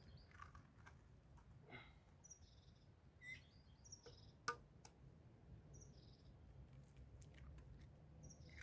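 Faint, scattered bird chirps with a few sharp clicks over a low steady background hum. The loudest click comes about four and a half seconds in.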